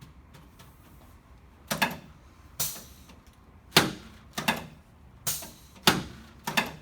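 A series of about seven sharp knocks at uneven intervals, starting a little under two seconds in.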